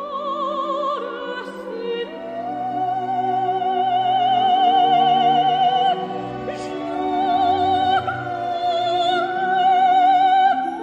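Soundtrack music: an operatic voice singing long, high held notes with wide vibrato over a sustained instrumental accompaniment.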